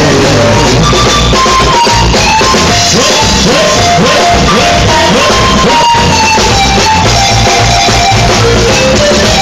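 Live band music, loud and steady: a saxophone plays a melody of held notes over keyboard and a drum beat.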